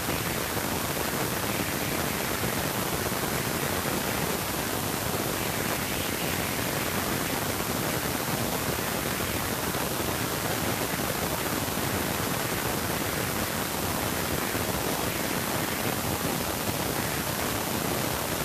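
Steady, even hiss like static, with nothing standing out from it.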